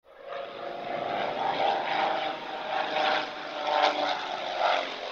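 A propeller aircraft engine running, fading in at the start and swelling and easing in loudness several times as its pitch wavers.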